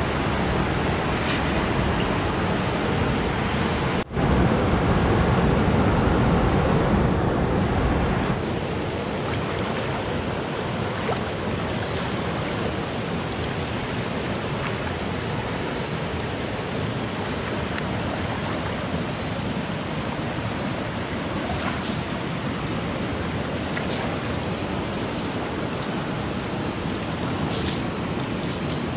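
Steady rushing of river water, louder for a few seconds from about four seconds in, with a few faint clicks near the end.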